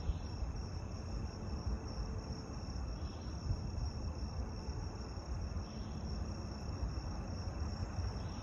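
Steady high-pitched trilling of night insects, like crickets, over a low rumble.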